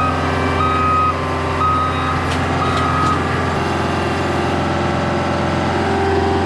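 Heavy equipment engine running steadily while its backup alarm beeps about once a second. The beeping stops about three seconds in, leaving the engine drone.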